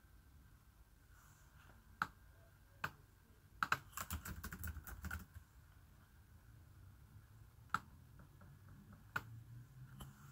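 Typing on an ASUS laptop keyboard, faint: a couple of single key taps, then a quick run of keystrokes about four to five seconds in as a word is typed out, then a few more single taps.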